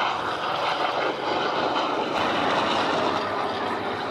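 Large radial piston engines of flying warbirds, a Douglas Skyraider and a Vought F4U-7 Corsair, running steadily as they pass.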